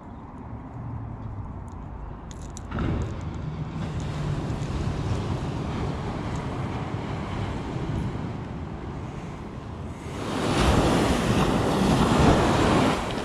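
Ocean surf washing on a beach, with wind on the microphone. It gets louder about ten seconds in, as waves break close by.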